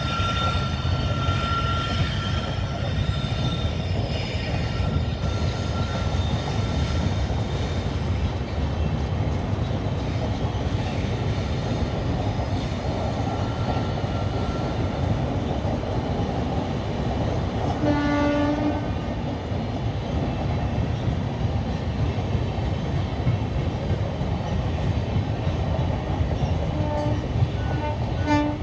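Express passenger train running on the rails with a steady rumble, its wheels squealing in thin high tones over the first few seconds. The train's horn sounds one blast about 18 seconds in and two short toots near the end.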